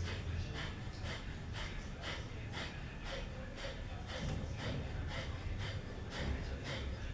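Kapalbhati pranayama breathing: a woman forcing the breath out through the nose in short, sharp, evenly spaced exhalations, about two a second.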